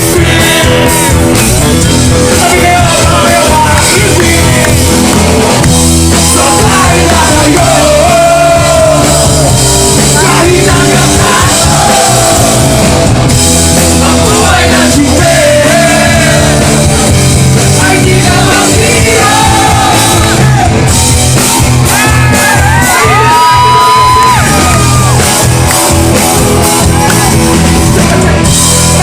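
Live band music with a singer's voice over guitar and bass, and shouts and yells from a crowd.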